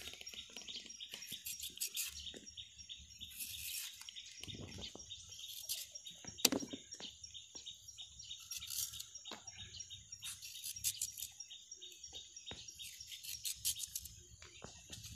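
Kitchen knife slicing a raw green mango into thin strips on a plastic cutting board: soft cuts and taps of the blade, with one sharper click about six and a half seconds in. Birds chirp in the background.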